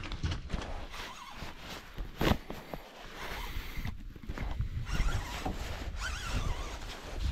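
Baitcasting reel and line being handled after a cast: scattered clicks and rasping, with one sharper crackle about two seconds in.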